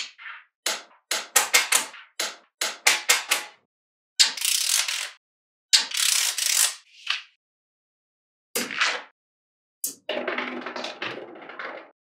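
Small magnetic balls clicking and clacking together as strips of them are pressed onto a magnetic-ball model by hand. A quick run of sharp separate clicks comes first, then several longer rattling clatters of balls snapping and settling into place.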